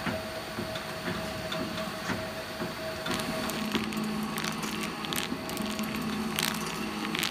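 Kraft insulating paper being wrapped and pressed onto a transformer coil on a winding machine: a series of sharp taps and paper crackles, more of them in the second half, over a steady workshop machinery hum.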